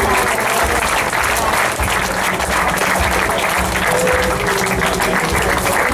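Crowd applauding steadily, with music playing underneath.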